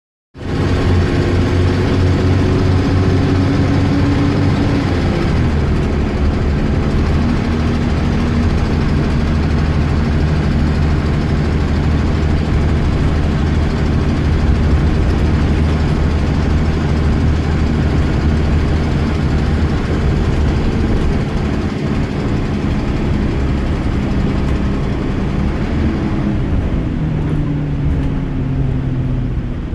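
Bus diesel engine running steadily under way, its note stepping down about five seconds in and shifting again near the end.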